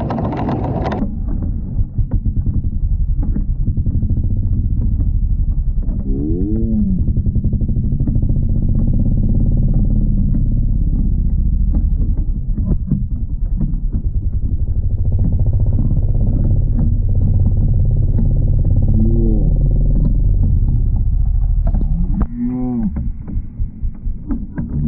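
Motor vehicle engine running heavily and steadily, revving up and back down briefly about six seconds in, again near nineteen seconds and once more about twenty-two seconds in.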